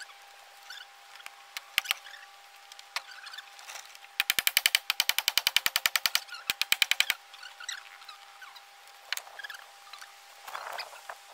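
A rapid run of sharp mechanical clicks, about ten a second for roughly three seconds, amid scattered knocks and taps from work on a timber beam frame.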